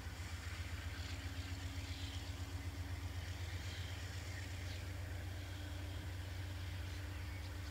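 Distant GE diesel freight locomotives approaching: a low steady engine drone, with a thin hum that rises slightly in pitch about three seconds in. Faint bird chirps over it.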